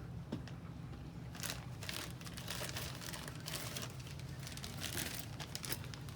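Plastic parts bag crinkling as it is handled and rummaged through, in short irregular rustles over a steady low hum.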